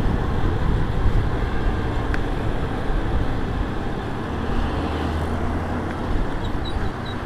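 Motorcycle under way on a city road, heard from the rider's helmet: a steady mix of engine, wind and road noise with traffic around it. A low drone grows louder for a second or two just past the middle.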